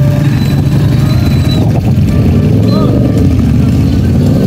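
Motorcycle engines running as bikes ride past, with a steady low engine note and crowd voices around them.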